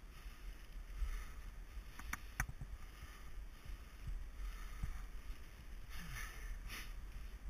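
Mountain bike riding down dirt singletrack, heard from a bike- or helmet-mounted camera: a steady rumble of tyres and bike over the ground, with two sharp clicks about two seconds in and a brief louder rush near the end.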